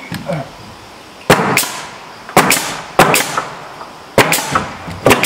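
Pneumatic nail gun firing nails overhead into wooden soffit boards: a run of sharp shots starting about a second in, often in quick pairs, roughly one burst a second.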